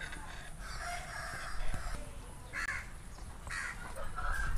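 Crows cawing, short calls about two and a half and three and a half seconds in, with a longer call about a second in and a falling one near the end.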